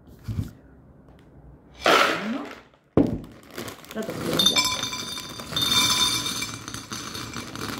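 Dry penne rigate pouring out of a plastic bag onto a plate: after a knock, a dense, continuous clatter of hard pasta pieces hitting the plate and each other, with a bright clinking ring.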